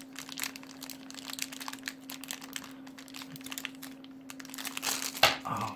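Packaging crinkling and rustling in quick irregular crackles as a stuck watch band is pulled out of it, with a sharper crackle about five seconds in.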